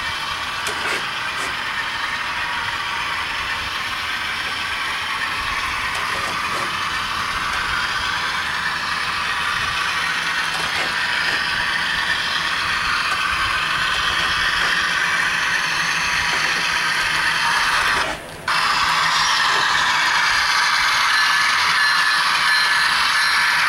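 HO scale model diesel locomotives running along the layout's track, a steady mechanical running noise of motors and wheels on rails that grows somewhat louder toward the end. The sound cuts out for about half a second around eighteen seconds in.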